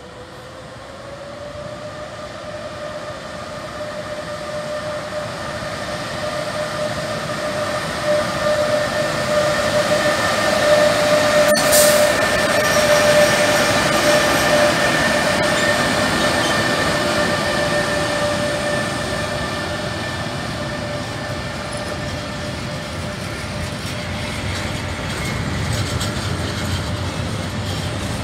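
DB Cargo E.483 electric freight locomotive approaching and passing with a train of closed freight wagons. The sound grows louder to a peak about halfway, then the wagons keep rolling by. A steady whine rides over the rumble, and there is a single sharp crack about twelve seconds in.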